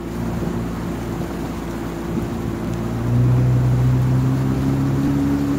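Boat's outboard motor running steadily, then throttled up about three seconds in, its pitch and loudness rising.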